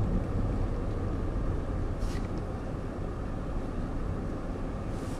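Steady low rumble of a car's engine and tyres heard from inside the cabin in slow checkpoint traffic, with a faint brief hiss about two seconds in.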